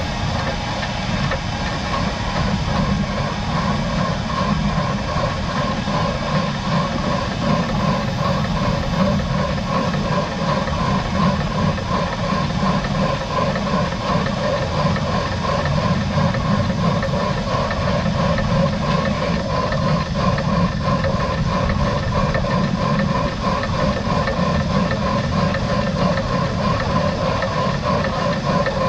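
Steam locomotive No. 92.2271, built by Krauss in 1919, running steadily along the line: a continuous working sound with steam hiss and a fast, even pulsing, mixed with the train rolling over the rails.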